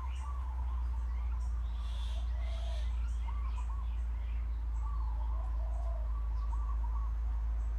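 Birds chirping and warbling in quick repeated calls, over a steady low hum that is louder than the birdsong.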